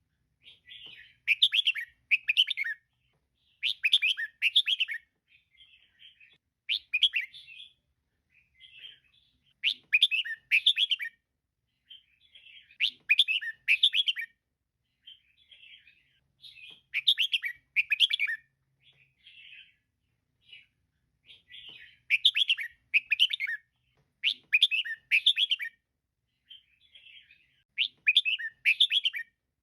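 Female red-whiskered bulbul calling: loud, chattering phrases of quick notes about every three seconds, with softer calls in between.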